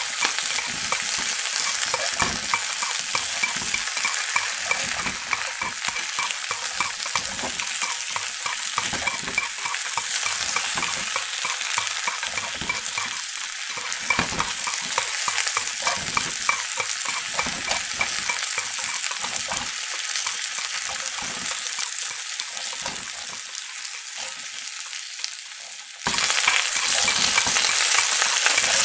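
Chicken frying in hot oil: a steady sizzle thick with fine crackling and spitting. It turns abruptly louder near the end.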